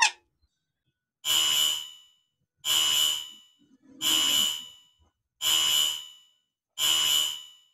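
Alarm buzzer sounding in five evenly spaced bursts, each under a second long, about one every second and a half.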